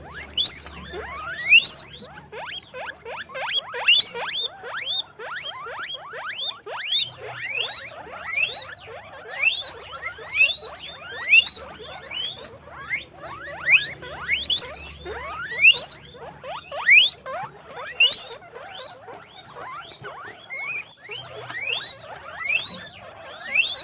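Guinea pigs squealing over and over: many short, rising, high-pitched squeaks, several at a time and overlapping.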